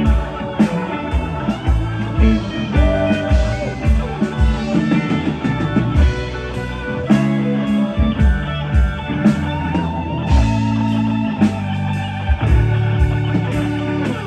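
Live rock band playing: electric guitars, bass guitar, keyboard and a drum kit keeping a steady beat, with gliding guitar notes over the top.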